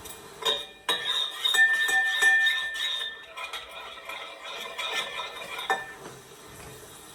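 Kitchen utensils clinking and knocking against dishes and cookware. A clear ringing note sounds about a second and a half in and holds for about a second and a half. The clinking stops about six seconds in.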